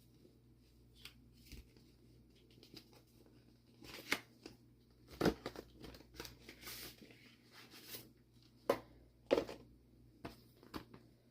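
Laptop packaging being handled and opened: scattered small taps and clicks, a stretch of tearing and rustling near the middle, and a few sharper knocks.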